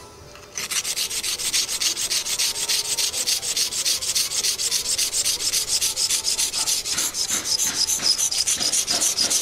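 Rusty steel blade of a yanagiba sashimi knife scraped back and forth on a coarse whetstone in quick, even strokes, several a second, starting about half a second in.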